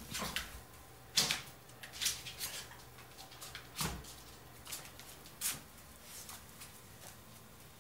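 Movement and handling noises: a handful of short, light knocks and rustles spread over several seconds, the loudest about a second in, with faint room tone between.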